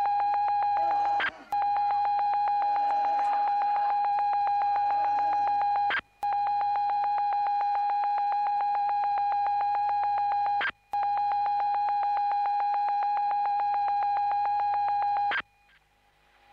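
A steady electronic beep tone, one held pitch with overtones. It drops out briefly three times, about every five seconds, and cuts off about a second before the end.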